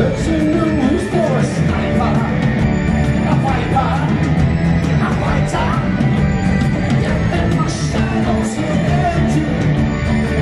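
Rock band playing live: a male singer singing into a microphone over bass guitar, drums and keyboards, loud and steady.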